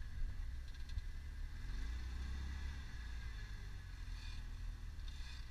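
Off-road 4x4's engine running at low speed under load as it crawls through a washout with one wheel dropped, revving up and easing off about twice.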